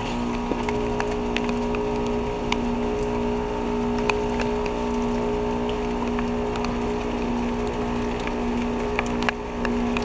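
Ruud Achiever RP14 heat pump outdoor unit in its defrost cycle: a steady hum and hiss from the running unit, with scattered sharp ticks over it.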